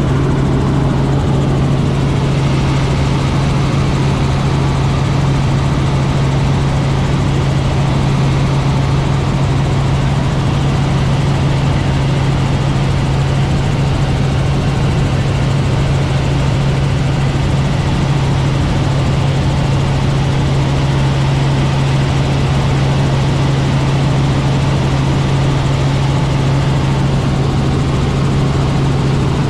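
Robinson R44 helicopter in cruise flight, heard from inside the cabin: its piston engine and rotors make a steady, loud drone with an even low hum.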